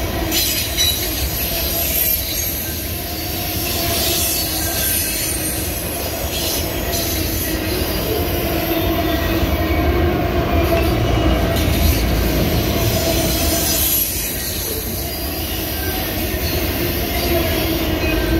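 Autorack freight cars of a slow-moving freight train rolling past, with a steady low wheel rumble and a sustained wheel squeal. A few clicks and knocks come from the wheels and couplers.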